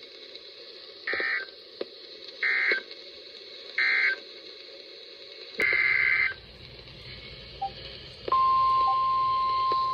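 Emergency Alert System data bursts from a weather radio: three short raspy digital bursts about a second and a half apart, the end-of-message code closing a tornado warning. A slightly longer burst of the same data sound follows, and near the end the steady single-pitch weather radio warning alarm tone comes on.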